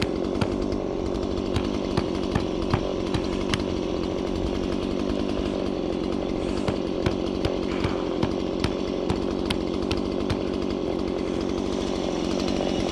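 Gasoline chainsaw running steadily at high revs, cutting into a tree trunk to free another saw's pinched bar, with sharp ticks now and then.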